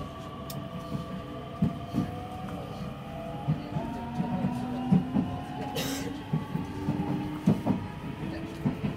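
Electric train accelerating out of a station, heard from inside the car: the traction motors' whine rises slowly in pitch, and the wheels knock irregularly over rail joints. A short hiss comes about six seconds in.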